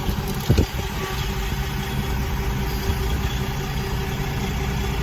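Car running, heard from inside the cabin: a steady low rumble of engine and road with a faint steady hum. A short knock about half a second in.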